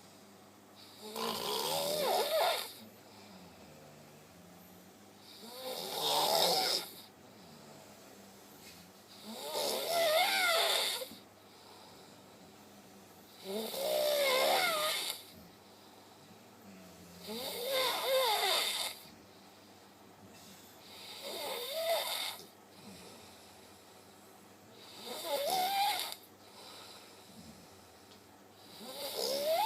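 A person snoring in a steady rhythm, one snore about every four seconds, eight in all. Each snore lasts about a second and a half and wavers in pitch.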